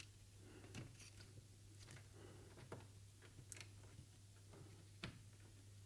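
Near silence with a few faint clicks and rustles of cable plugs being pushed onto motherboard fan, pump and ARGB headers, the sharpest click about five seconds in, over a faint steady low hum.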